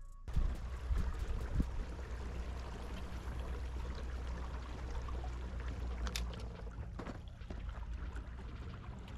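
Water lapping and trickling against the hull of a Hobie Pro Angler 14 kayak under a steady low rumble, with a few light knocks about half a second in, at a second and a half, and near six and seven seconds.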